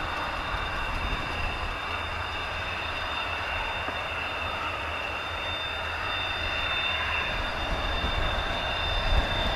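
Hawker Hunter T7's Rolls-Royce Avon turbojet running at taxi power: a steady high whine over a jet rush, getting a little louder near the end as the jet comes closer.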